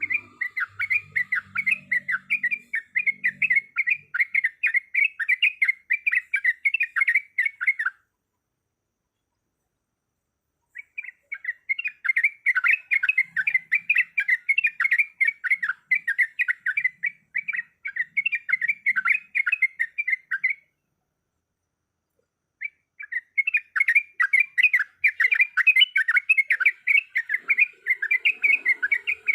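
Yellow-vented bulbul (trucukan) calling in long runs of rapid, chattering notes, in three bouts with short silent breaks between.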